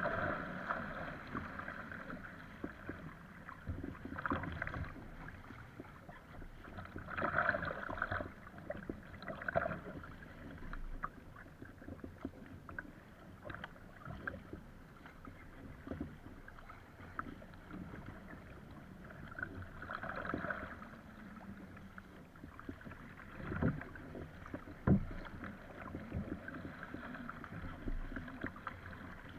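Choppy water splashing and rushing along an Epic V7 surfski's hull, with paddle blades splashing on each stroke and louder surges of wash every few seconds. A few sharp knocks come in the last few seconds.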